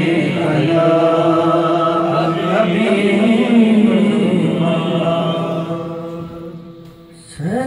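Unaccompanied men's devotional chanting, with long held notes. It fades away about six seconds in, and a voice starts the next phrase just before the end.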